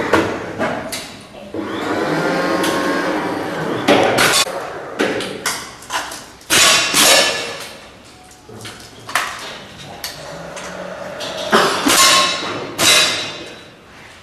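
Break-barrel air rifles being fired and cocked: a rapid, irregular series of sharp cracks and clacks from several shooters, echoing in a large hall.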